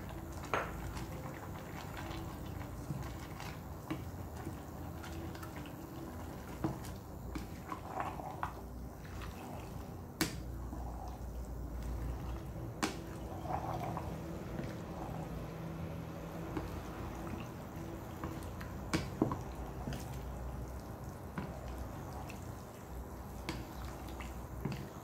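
A pot of chicken noodle soup with cabbage cooking: soft liquid sounds over a steady low hum, with a few sharp clicks of a utensil against the pot.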